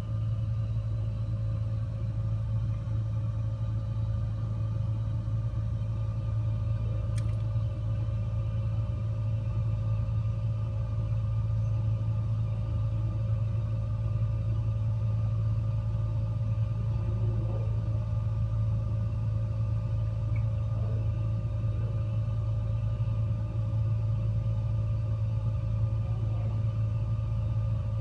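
Gas fireplace running: a steady low hum with fainter, higher steady tones above it.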